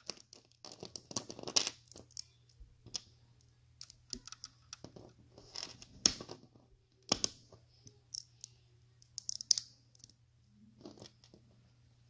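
LEGO plates being handled and pressed together by hand: irregular sharp plastic clicks and short clatters, a few of them louder.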